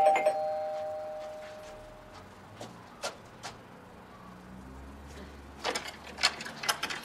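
A two-tone doorbell chime rings out and fades over about two seconds. A few soft taps follow, then a run of metallic clicks and rattles near the end as the front-door lock is unlocked.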